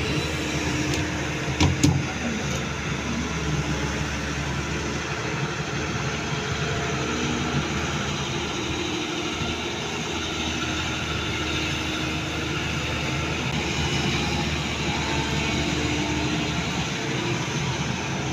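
CAT tracked excavator's diesel engine running steadily as the boom and bucket swing. A couple of sharp knocks a little under two seconds in.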